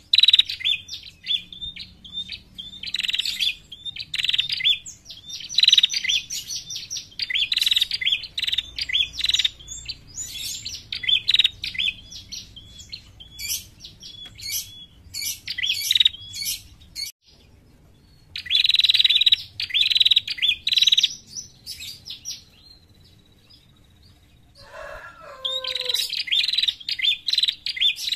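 Caged female prenjak calling in phrases of rapid, sharp, high chirps, with short pauses between phrases; this is the female call used as a lure to draw other prenjak. A single lower, falling call from something else comes in near the end.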